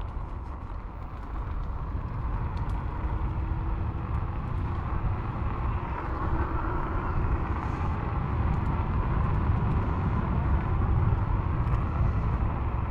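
Isinwheel GT1 electric scooter being ridden: a steady rumble of wind on the microphone and tyre noise that grows slowly louder, with a faint motor whine drifting up and down in pitch and scattered small clicks and rattles.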